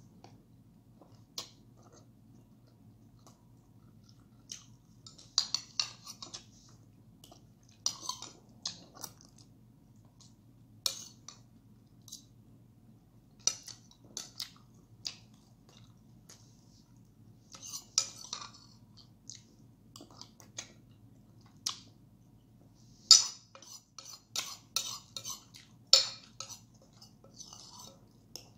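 Close-up eating sounds: cutlery clinking and scraping on dishes, with chewing between, in short scattered bursts. The sharpest clinks come near the end.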